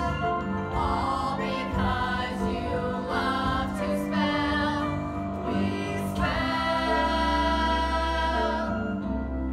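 Stage musical number sung by a cast of several voices together, with a long held chord about six seconds in that ends near the close.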